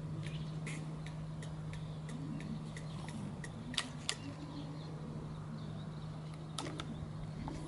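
Honda Rebel 250 MC13's air-cooled parallel-twin engine idling steadily, with light irregular clicks over the hum and two sharper ones about halfway through. The engine runs without any abnormal noise.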